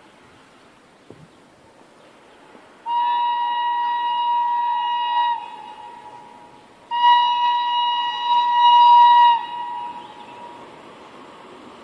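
A horn sounds two long, steady blasts of about two and a half seconds each, a second or two apart.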